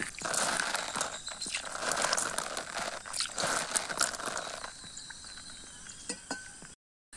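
Water being splashed onto a fresh banana leaf lying on the ground, a spattering patter in about three spells that stops about four and a half seconds in, followed by a few faint clicks.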